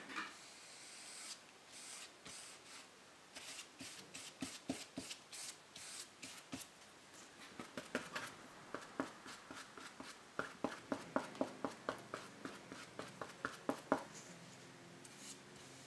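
Paintbrush working thick acrylic paint: strokes on paper, then dabbing and mixing paint on a card palette, heard as a run of faint quick taps and scrapes, about three a second in the second half.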